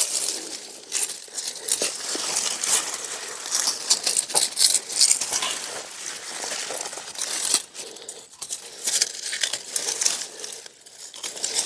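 Leafy sweet potato vines rustling and crackling as they are pulled about and clipped off at the soil with hand clippers.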